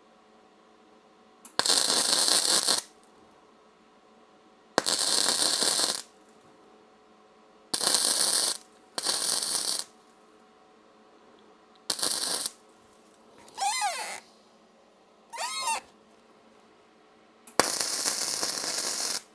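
Gasless flux-core MIG welder crackling in six separate bursts, mostly about a second each with the last one longest, as nuts are welded onto bolt shafts. Two short wavering squeals come between the later bursts.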